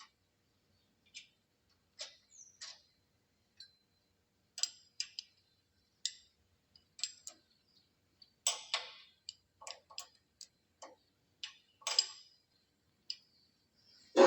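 Irregular metallic clicks and clinks of a wrench and hardware as the nuts on an automatic planer's tabletop adjustment are tightened, a few louder knocks about two-thirds of the way through.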